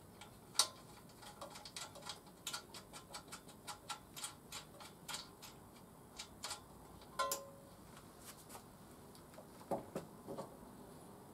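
Hand tools clicking and tapping on the motorcycle's metal parts: a run of quick, uneven ticks about three or four a second, a sharper click with a short metallic ring about seven seconds in, then a few duller knocks near the end.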